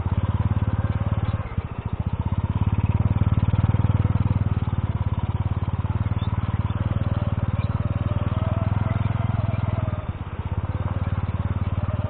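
Honda C70's small single-cylinder four-stroke engine running under way at a steady pace, easing off briefly about a second and a half in and again near the end.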